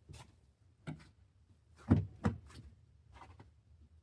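A few knocks and taps of things being handled and set down, two louder thumps close together about two seconds in.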